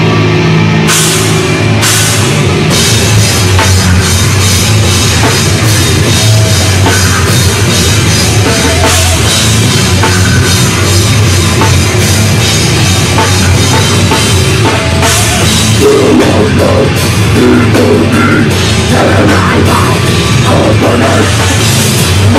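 Live heavy metal band playing: distorted electric guitars over a pounding drum kit with cymbals, loud and dense. It opens on a held chord, and the full band crashes in about a second in.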